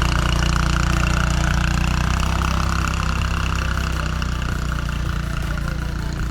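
ATV engine running at low speed with a steady, even beat, easing off slightly about two seconds in.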